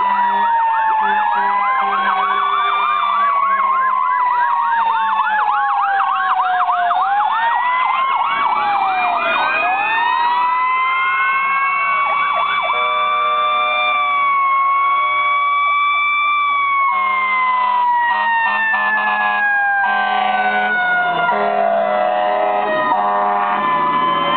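Several fire apparatus sirens sound at once. Slow wails rise and fall while a fast yelp warbles in the first few seconds, and bursts of steady horn tones join in about halfway through.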